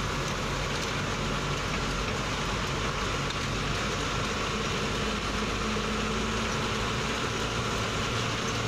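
Goods truck's engine running steadily, heard from inside the cab, with tyre and road noise from driving over a rough dirt road.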